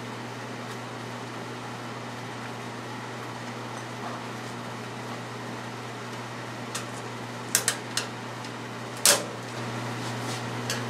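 Steady low hum with a few sharp clicks of small screws and nuts being fitted by hand into an aluminium wing rib bulkhead: a few light clicks about seven to eight seconds in and a louder one about nine seconds in.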